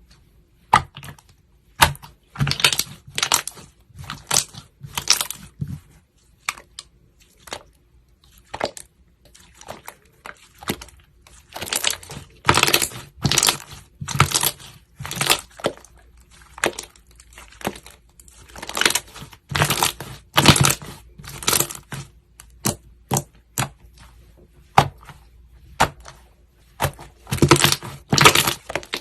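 Slime being squeezed and poked by hand, giving irregular sharp popping clicks and crackles in bunches of rapid pops.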